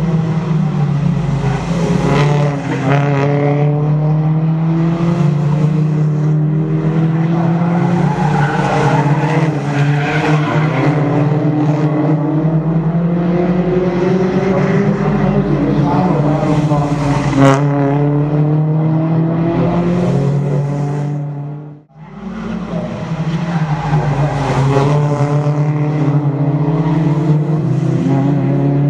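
Toyota Altis race cars' engines accelerating through the gears, the pitch rising and dropping again and again as several cars pass. The sound cuts out briefly about 22 seconds in.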